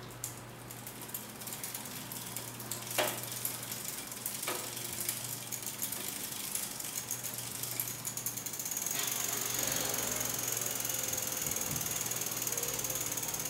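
Bicycle wheel spinning at low speed with its freewheel ratchet clicking rapidly. About nine seconds in, the clicking grows louder and a thin high whine joins it.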